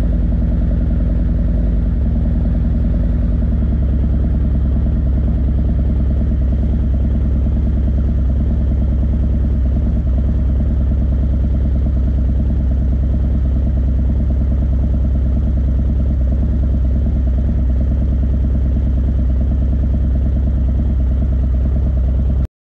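Harley-Davidson Milwaukee-Eight 117 V-twin idling steadily through Khrome Werks 4.5-inch HP-Plus slip-on mufflers, about a minute after a cold start, with a deep, even exhaust note.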